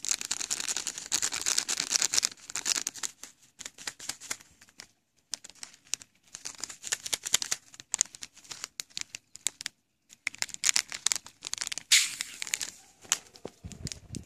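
Plastic fart bomb sachet crinkling and crackling as it is squeezed and shaken in the hand to burst its inner liquid pouch, in several bursts with short gaps. A low thump comes near the end.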